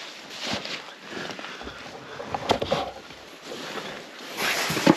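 The ice-glazed fabric of an Eskimo pop-up ice shelter being handled: irregular crinkling, scraping and rustling, with a few sharp knocks about halfway through and a louder rush of fabric noise near the end as the door is pushed through.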